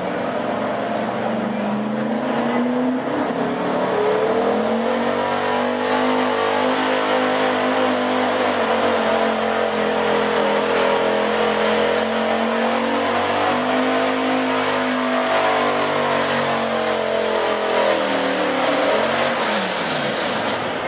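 Big-block gasoline V8 of a Pro Street pulling pickup running at high revs under full load as it drags a weight-transfer sled. The engine pitch climbs over the first few seconds, holds high with slight wavering, then falls away near the end as the pull ends.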